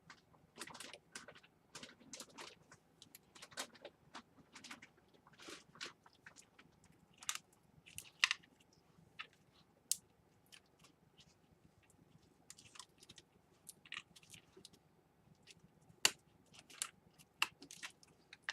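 Small irregular clicks and taps of laptop parts being handled and fitted together, as the case pieces and hinges are realigned.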